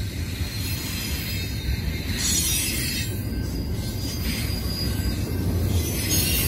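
Train passing, with a heavy low rumble of locomotives and rail cars under a hiss. It grows slowly louder, and airy swells of high hiss come and go.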